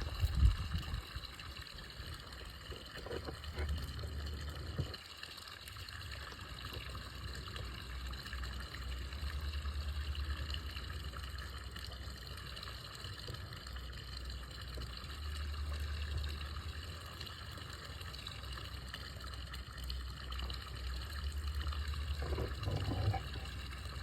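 Flowing water, a steady hiss, under a low uneven rumble, with a brief knock about half a second in.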